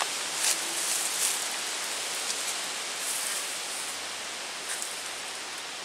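Leaves and branches rustling and brushing as the camera is pushed through dense brush, with a few short swishes over a steady outdoor hiss.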